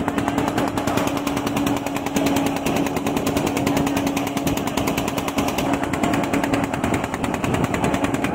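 Motorboat engine running steadily, a rapid, even chugging clatter with a constant low hum under it.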